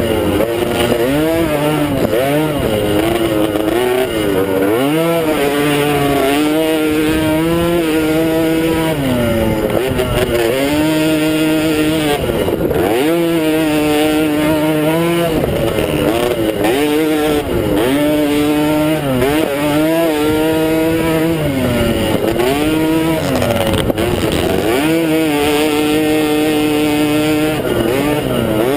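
A 90cc youth mini quad's engine racing, heard from on board: the revs climb and drop again every second or two as the throttle is opened and shut through the track's jumps and turns.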